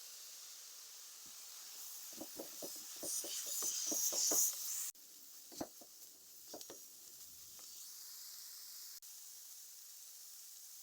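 Food sizzling in hot oil in a pan, with a steady hiss. The sizzle swells about two seconds in, with a quick run of clicks and knocks of a utensil against the pan. A few more knocks follow a little later.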